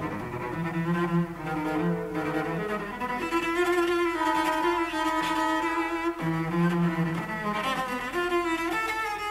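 Cello playing a slow melody of long, sustained notes with vibrato, one note after another.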